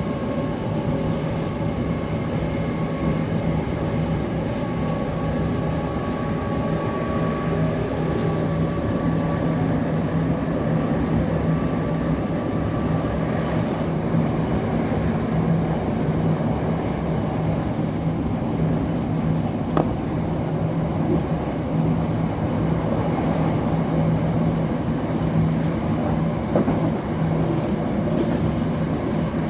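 Electric passenger train running: a steady rumble with a low, constant hum, and a higher whine that fades out about halfway through.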